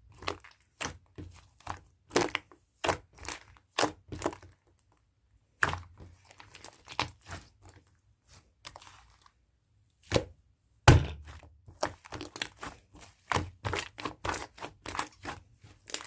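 Fluffy clay slime being pressed and squished by hand, giving a string of sharp clicks and pops a few per second, with two short pauses about five and eight seconds in and a denser run of pops near the end.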